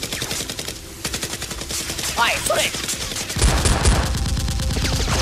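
Rapid automatic gunfire sound effect, a fast run of shots many per second. A couple of short falling tones cut through it a little after two seconds in, and a heavy bass beat comes in about three and a half seconds in.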